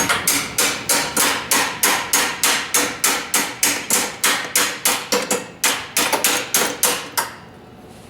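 Hammer striking a stuck pin in a Kawasaki KLT 200 three-wheeler, a rapid, even run of sharp blows at about three to four a second, stopping a little after seven seconds in. The pin is stubborn and does not drive out.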